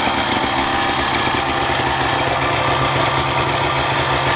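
Two-stroke go-kart engine, just started, running at a steady idle.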